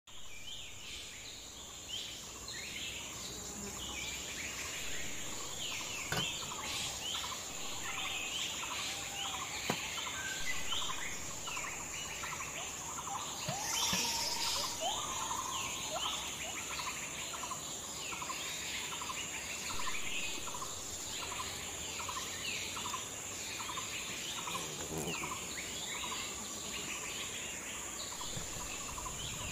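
Forest birds calling and chirping over a steady high-pitched insect drone. Through the second half one bird repeats a short note about twice a second, and there are a few faint knocks.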